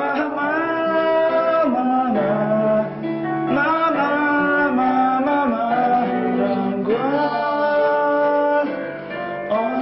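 A man singing held notes in phrases of a few seconds with short breaks between them, over guitar-backed music. He is an untrained singer practising in a new posture meant to keep his throat from tensing on high notes.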